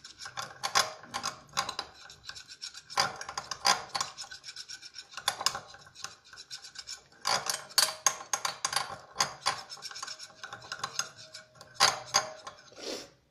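A spice-and-sauce marinade paste being stirred and worked in a glass bowl: rapid scraping and rubbing strokes against the glass, in runs broken by short pauses.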